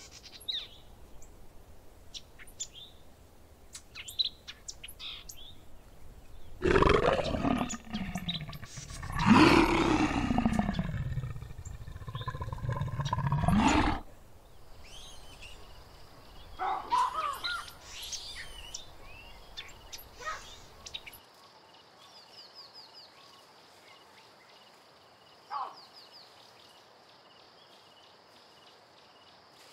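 Wildlife sound effects: scattered bird chirps, then a loud animal roar in two long, drawn-out calls, then more bird calls, and in the last third a steady high trill.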